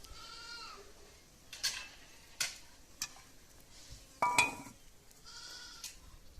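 Goats bleating, three short calls with the loudest about four seconds in, and a few sharp clinks of pots and utensils between them.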